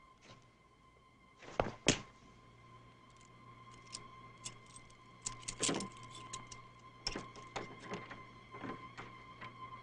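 Foley sound effects performed for an action scene: two loud sharp impacts close together about a second and a half in, then a scattered run of short clicks and knocks, over a faint steady musical drone.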